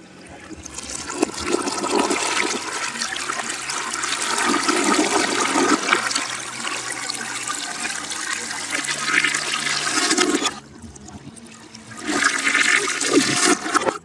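Toilet flush played in reverse at normal speed: rushing, gurgling water that swells up gradually and then cuts off abruptly about ten and a half seconds in, followed by a second short surge of water that stops just as suddenly near the end.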